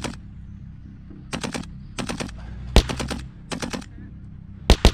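Airsoft guns firing in short bursts of rapid shots, about six bursts in a few seconds, with a sharper, louder crack near the middle and two more near the end. A steady low rumble runs underneath.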